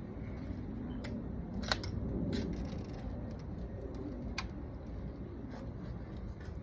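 A handful of sharp, scattered metallic clicks from hand tools and engine parts being handled during spark plug and ignition coil work, over a steady low outdoor rumble.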